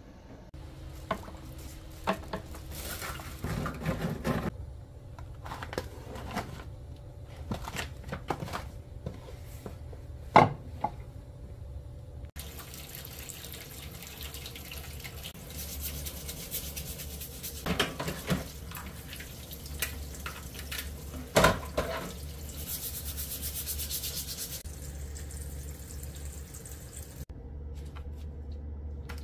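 Kitchen handling sounds: scattered knocks and clinks of dishes and utensils, with rubbing. A steady low hum and hiss start partway through and stop near the end.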